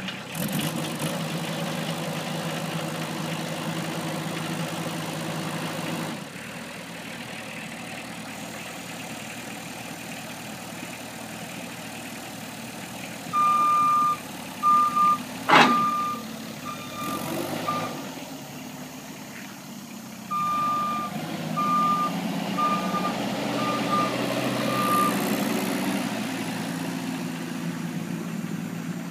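Heavy delivery truck's engine running, louder for the first few seconds and again in the last third, with a backup alarm beeping in two runs in the middle. A single sharp bang cuts through the first run of beeps.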